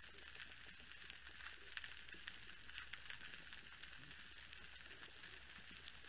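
Faint, dense crackling of snapping shrimp on a coral reef, heard underwater: countless small clicks with a few sharper snaps, over a steady low hum.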